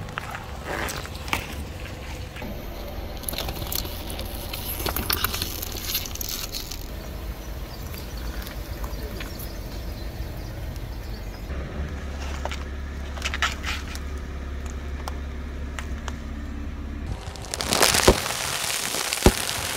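A car tyre slowly rolling over and crushing fruit (watermelon slices, then strawberries), with scattered crackling and crunching over the car's low engine rumble. Near the end, louder crunching as the tyre presses onto sealed bags of snacks.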